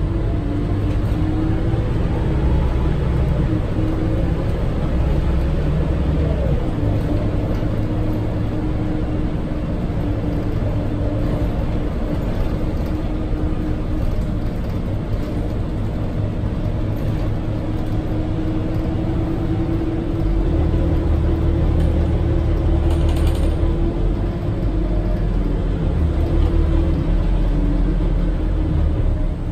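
Scania K230UB city bus heard from inside the cabin: its Scania DC9 five-cylinder diesel and ZF Ecomat six-speed automatic running with a steady whine over a low rumble that swells and eases. The interior fittings rattle and creak, with one brief sharper rattle about three-quarters of the way through.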